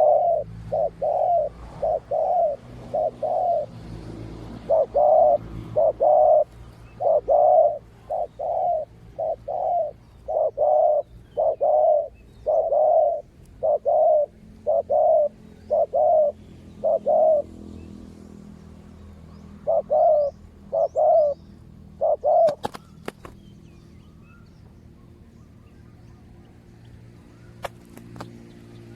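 Spotted dove cooing: a long run of short, mid-pitched coo notes in quick groups, pausing about eighteen seconds in, then three more notes just after twenty seconds. A few sharp clicks follow near the end.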